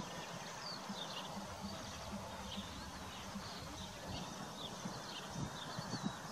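Horses grazing: repeated short tearing and chewing sounds as they crop the grass, with small birds chirping faintly behind.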